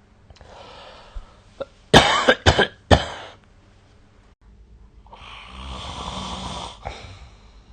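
A sleeping person breathes noisily, then coughs in a quick run of about four sharp coughs around two seconds in. One long snore follows near the end.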